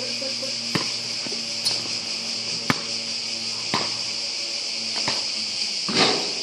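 Steady high-pitched chorus of insects. Over it, a basketball thuds on the asphalt court about once a second, loudest near the end.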